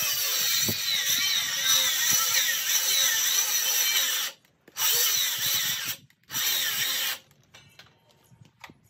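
Handheld power tool working into a 6x6 timber post. Its whine wavers in pitch as it loads and runs for about four seconds, then cuts off. Two shorter bursts follow, and after them only a few light clicks and knocks.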